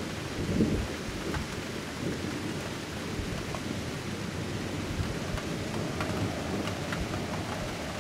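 Thunderstorm: steady rain hiss with low rolling thunder, the rumble swelling about half a second in and then going on more faintly. A few sharp ticks come later on.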